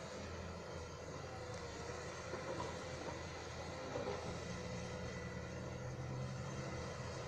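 Diesel engine of heavy earth-moving machinery running steadily, a low even drone with no breaks.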